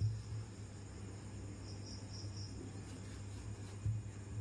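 Quiet background with a steady low hum and a faint high-pitched chirping, a few brighter chirps near the middle, plus soft knocks of hands pressing dough on a wooden board at the start and shortly before the end.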